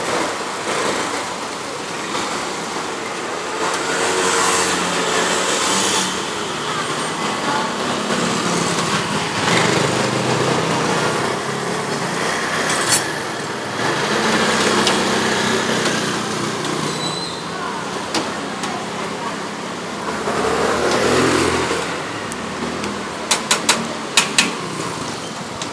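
Busy street ambience: steady traffic noise that swells and fades as vehicles pass. Near the end there is a run of sharp clicks.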